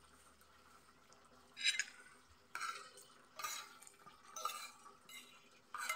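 Spoon and fork scraping and clinking on a ceramic plate of cooked vegetables: quiet at first, then about six short scrapes spaced under a second apart.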